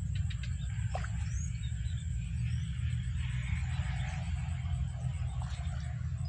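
Steady low rumble of wind buffeting the microphone beside a pond, with a thin steady high whine above it.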